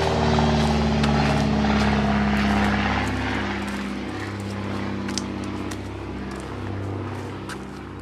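A passing engine drones with a steady pitch and slowly fades away. Light sharp clicks sound in the second half.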